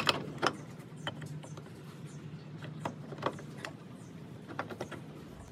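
A few light, scattered clicks and knocks of metal parts being handled as a collar and gear are worked onto the spindle shaft in a Logan 200 lathe's cast-iron headstock, over a faint steady low hum.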